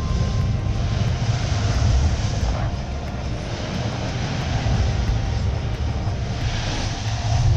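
Sportfishing boat's engines running hard while it manoeuvres on a hooked blue marlin, with water rushing and splashing around the stern: a deep steady rumble under a rushing hiss that swells again near the end.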